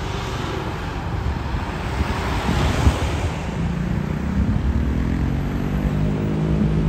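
Wind rushing over the microphone, with a motor vehicle's engine hum coming in about halfway and slowly rising in pitch.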